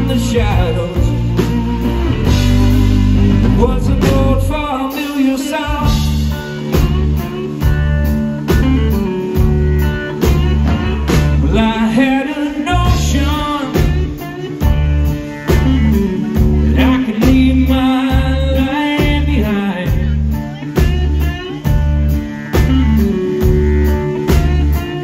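Live blues-rock band playing: a man singing over guitars and a drum kit, with a steady beat.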